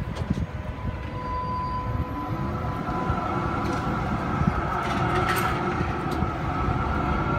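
B2-class tram moving off from a platform stop, its traction motors whining and slowly rising in pitch as it gathers speed, with the rumble of its wheels on the rails.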